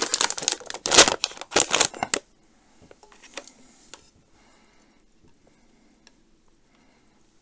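Plastic gummy-candy bag crinkling loudly as it is handled, stopping about two seconds in, followed by a few faint taps.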